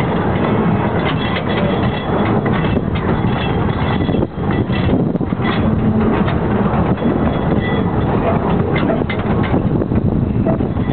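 Narrow-gauge light railway train running: a steady rumble and rattle with frequent irregular clacks from the wheels and cars on the track.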